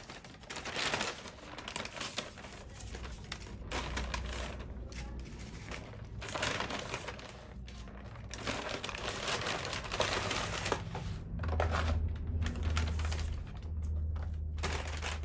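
Irregular rustling and crinkling with scattered clicks and taps, coming in clusters.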